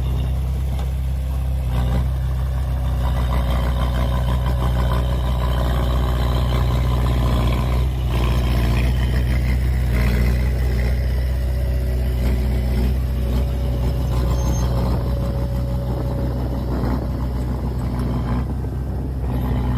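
Heavy diesel engine of earthmoving machinery running steadily, with a deep continuous drone.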